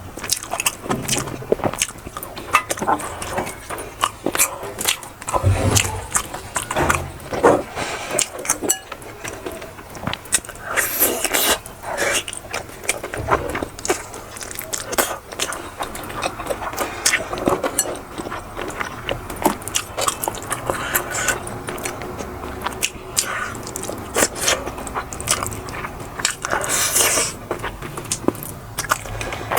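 Close-miked eating: chewing and biting mouthfuls of food, with many small clicks throughout.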